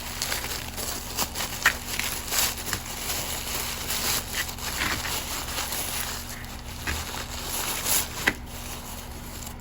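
Packaging being opened and handled by hand: irregular rustling and crinkling with scattered small clicks, over a steady low hum.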